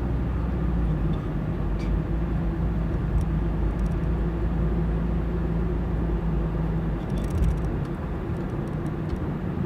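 Car driving along a road: a steady low drone of engine and tyre noise, with a steady hum that stops about seven and a half seconds in.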